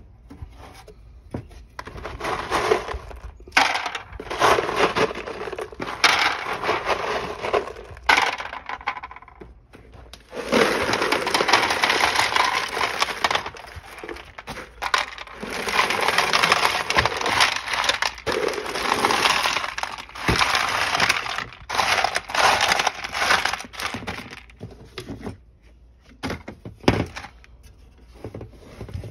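Lava rocks clattering and knocking as they are tipped and dropped into the plastic tray of a Tetra submersible flat box pond filter, in stretches of several seconds with short pauses between, fewer knocks near the end.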